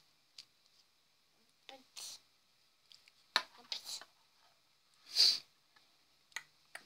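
Small plastic toy figures tapped and set down on a wooden tabletop, a few scattered clicks and knocks. A child's short vocal sound comes early, and a brief hiss about five seconds in is the loudest sound.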